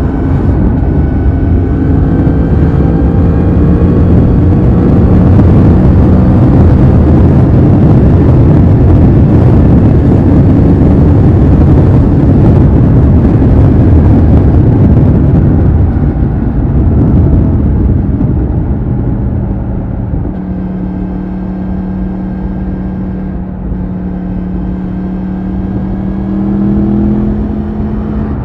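2020 Yamaha MT-10's crossplane inline-four on its stock exhaust running at motorway cruising speed, heard from the rider's seat under heavy wind rush. After about 16 seconds the wind eases and the engine's drone comes through more clearly, rising a little in pitch near the end.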